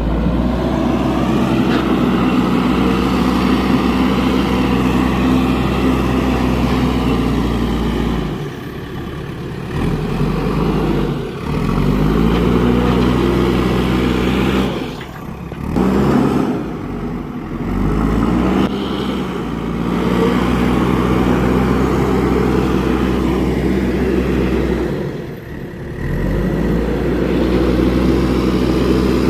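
A JCB machine's engine running, its revs dropping and climbing back several times.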